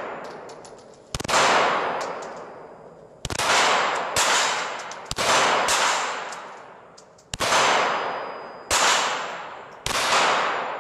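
Seven pistol shots fired one at a time, one to two seconds apart, each followed by a long echo that fades off in the hall of an indoor shooting range.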